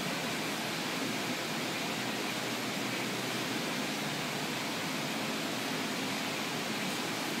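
Detroit Diesel 8V-53 two-stroke V8 diesel running steadily, a constant rushing noise. The uploader hears air noise in the exhaust and puts it down to compression getting past a busted valve.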